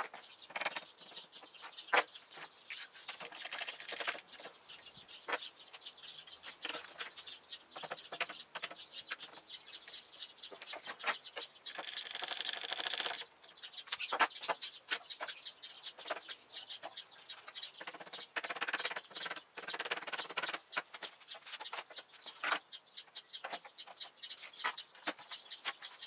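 Handling noise from setting up a jig: scattered clicks and knocks of an Irwin Quick-Grip bar clamp and a long spirit level being positioned and clamped on a wooden tabletop, with a brief scraping rush about twelve seconds in.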